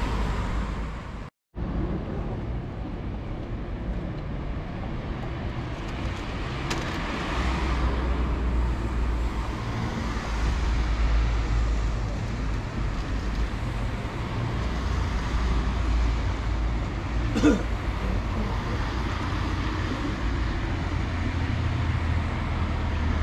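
Road traffic: cars passing on a city street, a steady low rumble. The sound drops out briefly just over a second in, and a short pitched sound stands out about seventeen seconds in.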